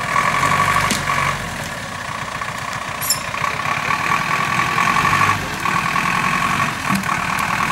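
GAZ-66 truck's V8 petrol engine running at low speed as the truck crawls through deep ruts, with a steady whine that drops away for about two seconds early on and briefly again past the middle. A short click sounds about three seconds in.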